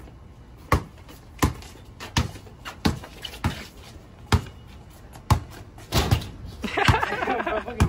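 Basketball dribbled on brick pavers: sharp, regular bounces about one every 0.7 seconds.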